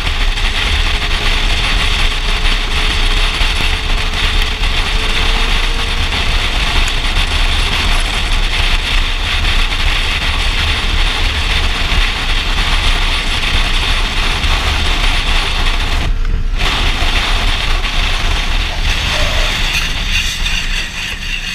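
Heavy wind rush on a helmet-mounted camera at highway speed, with a motorcycle engine running underneath. The sound cuts out for a moment about sixteen seconds in.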